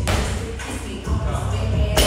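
Background pop music with singing and a steady beat, with a sharp thud at the start and another at the end.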